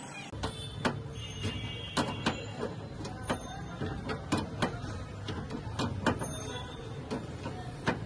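Irregular sharp clicks and knocks of hand tools at work, two or three a second, over a steady low hum.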